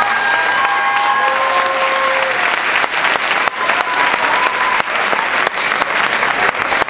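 Audience applauding steadily at the end of a dance performance.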